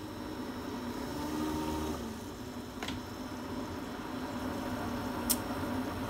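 Keurig single-serve coffee maker brewing a large cup: its pump runs with a steady hum that swells slightly. Two short clicks sound about three seconds and five seconds in.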